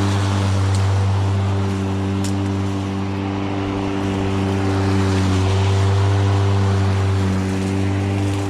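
Stiga Twinclip 950e V 48-volt battery lawnmower running under load, cutting high grass: a steady electric motor and blade hum over a rushing sound of grass being cut and thrown out.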